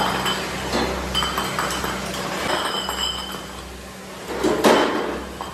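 Cast aluminium motorcycle wheel hubs clinking and clattering against one another and the steel wheelbarrow as they are handled and loaded, with a louder clatter near the end. A steady low hum runs underneath.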